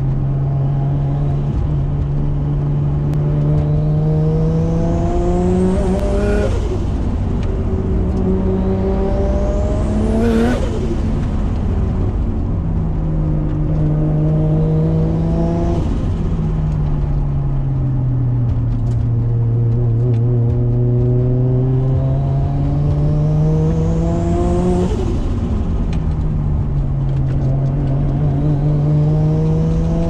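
A Nissan Skyline R33's turbocharged RB25DET straight-six is accelerating hard, heard from inside the cabin. The revs climb over several seconds with a rising turbo whistle, then fall sharply at each gearchange, several times. A short turbo flutter rushes out as the throttle closes.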